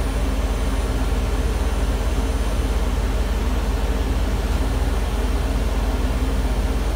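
CNC rack milling machine running steadily: a continuous mechanical hum with a fast, even low pulsing, several steady tones and a thin high whine.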